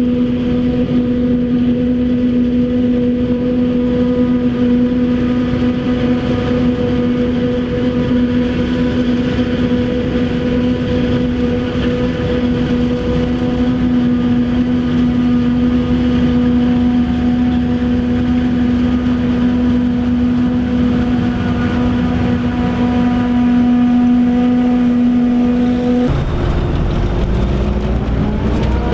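Maize silage harvesting machinery running with a loud, steady hum. About 26 seconds in the hum breaks off and an engine note rises in pitch.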